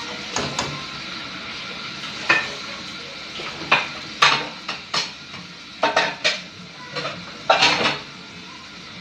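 A utensil knocking and scraping against a cooking pot while stirring, about a dozen irregular clinks over a steady hiss.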